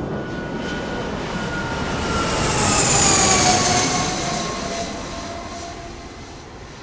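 Cessna Citation CJ4 twin-turbofan business jet making a low flyby: the jet noise builds to a peak about three seconds in, its whine falling in pitch as it passes, then fades away.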